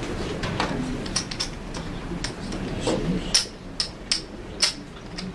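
Clay poker chips clicking and clacking together several times, irregularly, as a player handles a stack of them, over a low background murmur.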